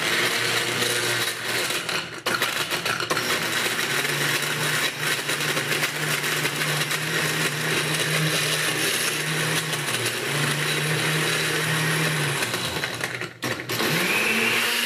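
Electric countertop blender crushing ice with strawberries, vodka and condensed milk, its motor running steadily. Near the end it cuts out briefly and starts up again, a pause that lets the ingredients drop back down to the blades.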